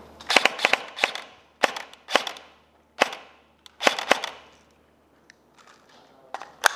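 Airsoft rifle firing about ten sharp shots in quick strings and singles over the first four seconds, then one more sharp click near the end.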